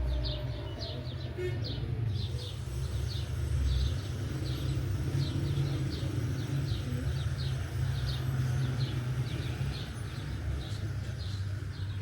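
A small bird chirping over and over, short high chirps about two a second, over a steady low rumble.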